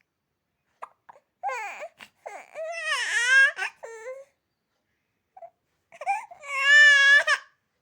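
Infant crying and whimpering: high-pitched, wavering cries in two bouts, the second starting about six seconds in.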